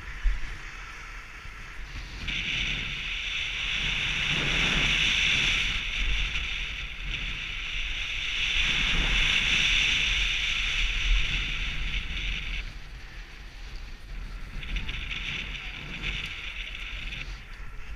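Skis sliding over hard-packed snow, a steady hiss that stops for about two seconds past the middle and then briefly returns. Underneath is a low rumble of wind buffeting the helmet camera's microphone.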